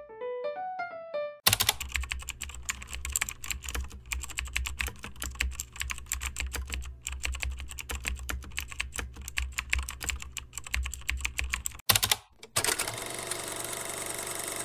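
Rapid, irregular clicking of typing on a computer keyboard for about ten seconds, after a few short pitched notes at the start. Near the end the typing stops and a steady hiss takes over.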